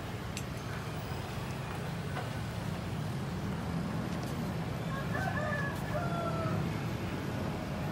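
A rooster crowing once, about five seconds in, over a steady low background rumble.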